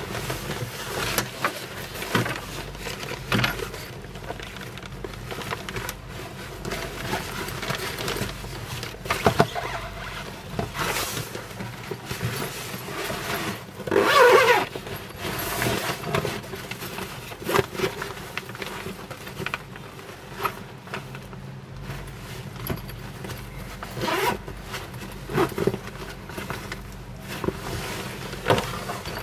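Heavy-duty polyester packcloth organizer being handled: fabric rustling and scraping, with irregular knocks and a louder rasping burst about halfway through, over a steady low hum.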